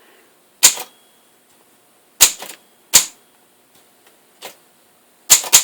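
1937 Underwood Universal portable manual typewriter, its keys struck one at a time: about five sharp type strikes at irregular intervals, the last two in quick succession. Keys are being tried on a machine where some of them stick.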